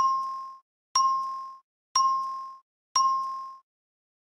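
Game-show ding sound effect, four identical bright chimes about a second apart, each ringing out and fading in under a second. Each ding marks an answer word being revealed on the puzzle board.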